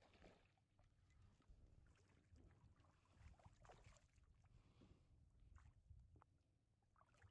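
Near silence: faint splashing of a hooked spotted bass thrashing at the water's surface beside the boat, a few soft splashes over a low steady rumble of water and wind.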